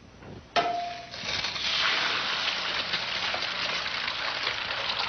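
A sharp click about half a second in as an egg drops into a hot frying pan, then the egg sizzling steadily as it fries.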